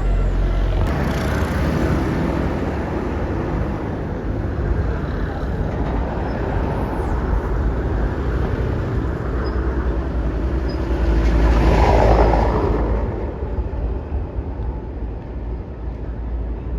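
Road traffic passing: engine rumble and tyre noise, swelling as one vehicle passes close about twelve seconds in, then easing off.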